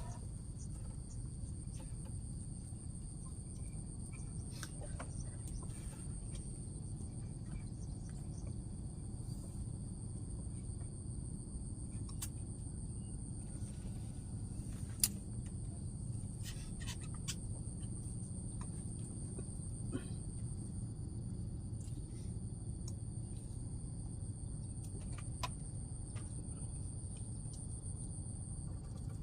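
An insect's steady, high-pitched continuous trill, which breaks off briefly near the end, over a low steady outdoor rumble with a few faint clicks.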